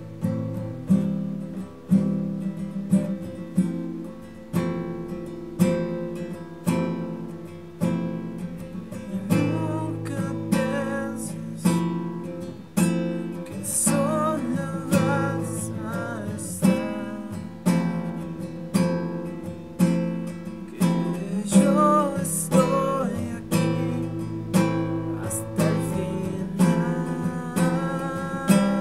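Acoustic guitar music: strummed chords about once a second with picked melody notes over them.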